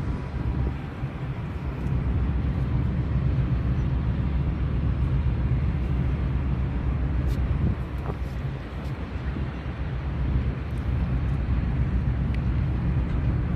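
Passenger ferry under way: a steady low rumble with a rushing noise over it, easing briefly about two-thirds of the way through.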